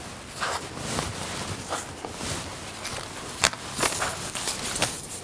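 Foundation paper and fabric pieces rustling and sliding as they are handled on a cutting mat, with soft scuffs and one sharp tap about three and a half seconds in.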